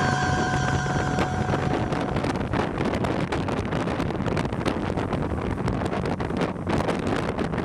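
Wind rushing and buffeting over the microphone at downhill skateboarding speed, over a steady road rumble. The tail of some music fades out in the first second or two.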